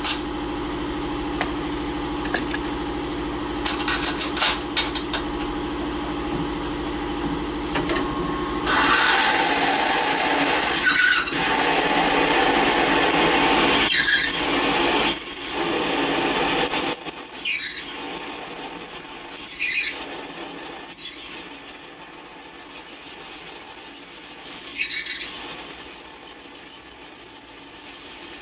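Serdi 100 cylinder-head machine running: the spindle motor hums steadily, then about nine seconds in the cutter bites into the cast-iron head with a loud rasping cut. From about seventeen seconds the cut turns to a high, steady squeal that dips briefly several times, as the intake valve guide bore is machined to take a new guide.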